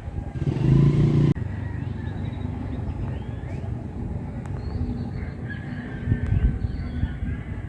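Village street sounds: a motor vehicle runs close by for about the first second, cut off abruptly, then a steady low rumble continues with birds chirping and calling over it.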